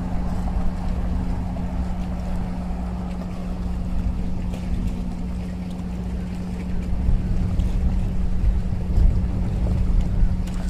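Wind buffeting the microphone and sea water washing against shoreline rocks, over a steady low hum. The wind gusts grow a little stronger over the last few seconds.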